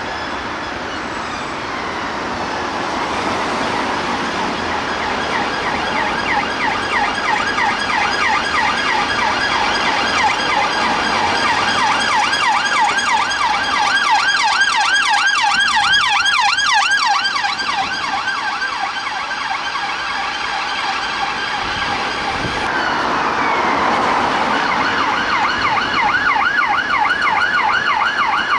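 UK police car electronic sirens going past one after another. The first siren glides slowly in a wail, then switches to a fast yelp that grows louder and fades again. About three-quarters of the way through, a second car's siren starts with a slow glide and goes back into the fast yelp.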